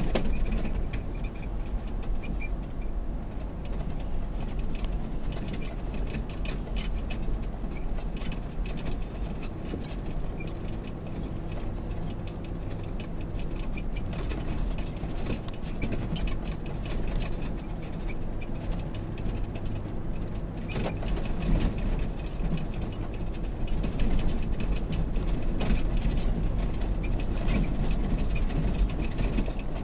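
Lexus GX460's V8 running with a steady low drone, heard inside the cabin while the SUV crawls over rutted beach sand. Frequent light rattles and clicks come from the cabin as it jolts over the ruts.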